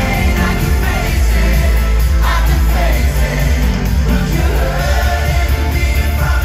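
Live pop concert in an arena: male voices singing into microphones over a loud band backing with heavy bass, recorded from the audience.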